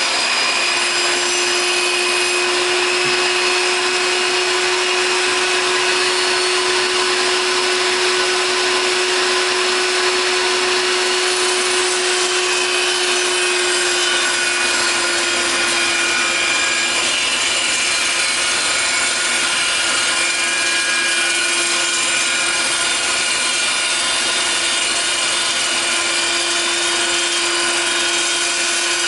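Metal chop saw running at full speed and cutting through steel, a steady high whine over a dense grinding hiss that holds level throughout.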